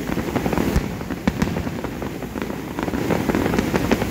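Aerial fireworks bursting overhead: a sudden bang at the start, then a dense, fast run of sharp pops and crackles with several louder reports in the first second and a half.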